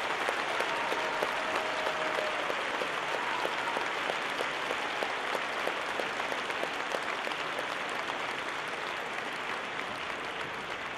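Theatre audience applauding: steady, dense clapping from a large crowd.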